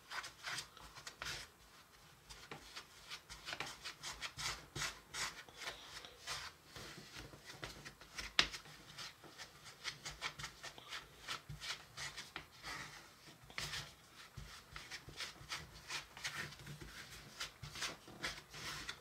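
Wooden spoon stirring and scraping crumbly cookie mix in a small plastic mixing bowl: a run of soft, irregular rubbing strokes. The dry mix is being pressed against the side of the bowl until it clings into a dough.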